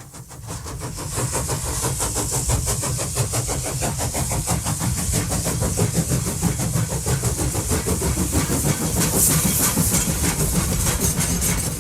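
A train running, fading in over the first second, with a fast, even beat and a steady hiss.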